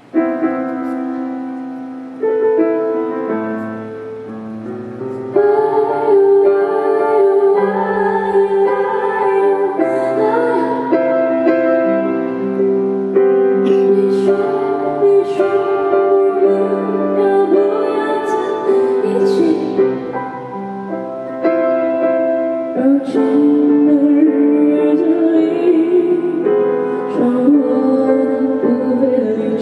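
Slow pop song played on piano, with a woman singing over it.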